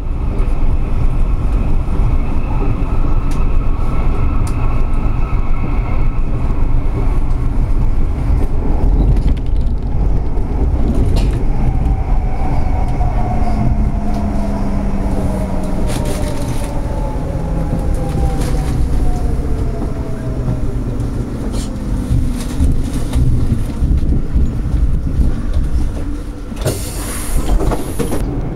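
Running noise inside the cab of a dual-voltage tram-train on the main line: a steady rumble of wheels on rail, and a motor whine that glides down in pitch through the middle as the tram slows toward a station. There is a short hiss near the end.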